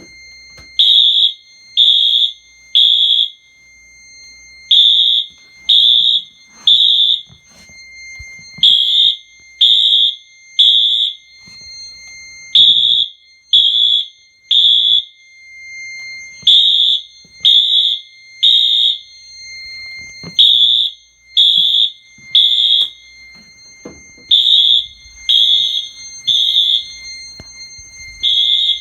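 Two Wheelock AS horn strobes on a Fire-Lite MS-5UD fire alarm panel sounding together in temporal-3 evacuation code. They give three high-pitched beeps of about half a second each, then a pause of about a second and a half, over and over. A steady high tone runs underneath.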